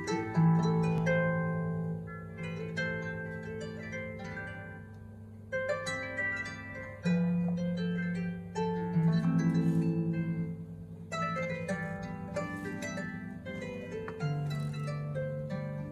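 Solo harp played live: plucked melody notes and chords ringing out over held low bass notes.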